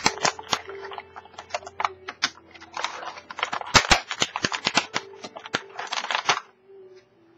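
Stiff plastic blister packaging crackling and clicking as it is handled, in a quick, irregular run of clicks that stops about six and a half seconds in.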